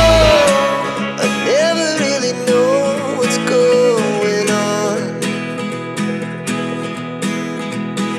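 Background music: a gliding melody line over a steady run of short plucked notes. The deep bass drops out just after the start.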